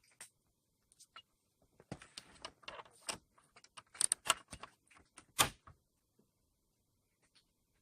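A run of sharp knocks, clicks and rattles over about four seconds, the loudest a single knock near the end.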